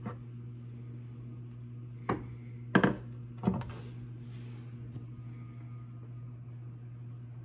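Ceramic mixing bowls knocking as they are handled and set down on a wooden shelf: one knock about two seconds in, a quick double knock just after, and another half a second later. A steady low hum runs underneath.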